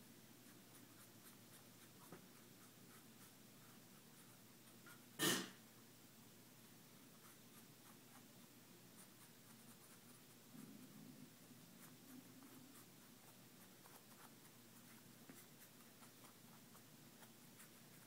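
Faint scratching of a Sharpie permanent marker colouring a cotton t-shirt between rubber bands. A single short, loud noise about five seconds in.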